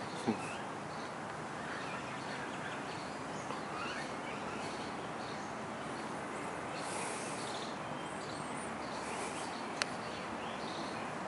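Outdoor garden ambience: a steady background hiss with scattered small bird chirps throughout, and a brief click just after the start and another near the end.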